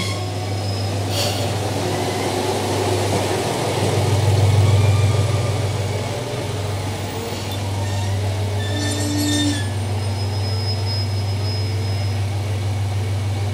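Tosa Kuroshio Railway 9640 series diesel railcar's engine running with a steady low hum as the railcar rolls slowly along the platform and comes to a stop. The hum swells about four seconds in as the engine passes close by, then settles.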